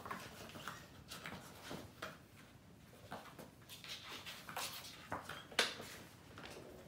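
Kittens playing and scampering on a hard floor: irregular light taps, scuffs and rustles, with a sharper knock a little over halfway through.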